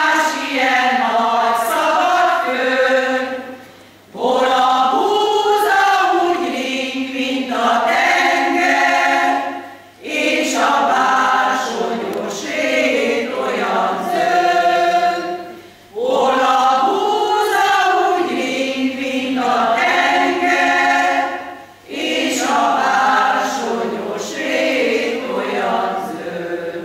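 Women's choir singing together in long phrases of about six seconds each, with a short breath break between phrases.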